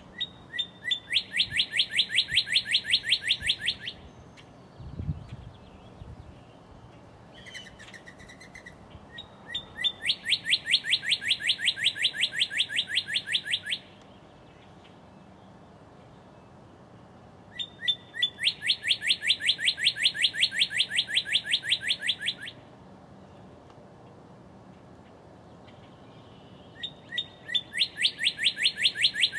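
Male northern cardinal singing: four phrases, each a couple of separate opening notes followed by a fast run of repeated clear, down-slurred whistles lasting about three seconds. The phrases are spaced several seconds apart, and the last is cut off at the end.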